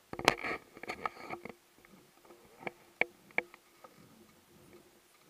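A quick flurry of small clicks and knocks, then three single sharp clicks about three seconds in, from fishing gear being handled in a wooden boat.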